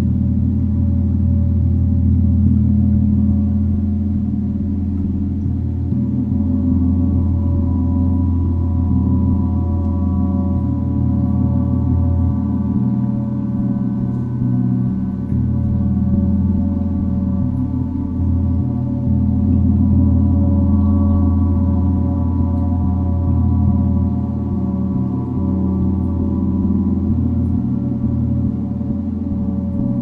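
Chiron gong played continuously with a mallet: a deep hum under many shimmering ringing overtones, swelling and easing in slow waves.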